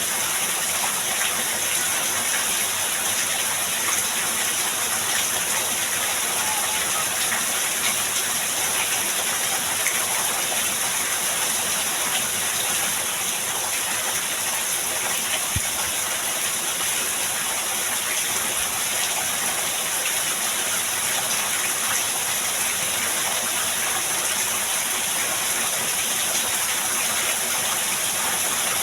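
Heavy rain pouring steadily, a dense even hiss of water with no let-up. One small click about halfway through.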